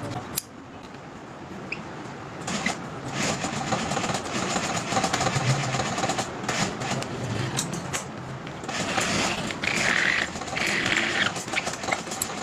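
Factory workshop noise: machinery running steadily, with frequent irregular clicks and knocks.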